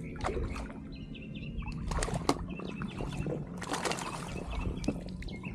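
A bird chirping in short, repeated notes, mixed with scattered sharp knocks and handling sounds.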